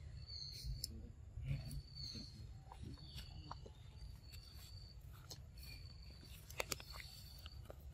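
Outdoor forest ambience: a short high-pitched call repeats about once a second over a steady low rumble, with a couple of sharp clicks near the end.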